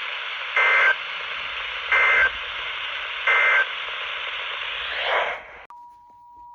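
Weather radio static carrying three short bursts of warbling SAME data tones, the end-of-message signal closing a National Weather Service warning. Near the end the static cuts off abruptly and a quieter steady two-note alert tone starts.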